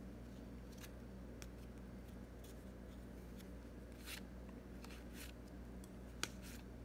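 Baseball trading cards sliding against one another as a stack is thumbed through card by card: a handful of soft, brief scrapes, with a sharper click about six seconds in, over a faint steady hum.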